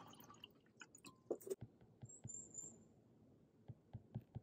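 Quiet handling sounds: the last drips of bottled water poured into a glass mug and a few light knocks, then an Apple Pencil tapping on an iPad screen several times near the end.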